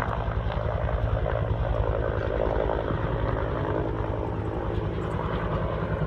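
Firefighting helicopter flying overhead with a water bucket slung beneath it: a steady, fast rotor beat over a constant engine drone.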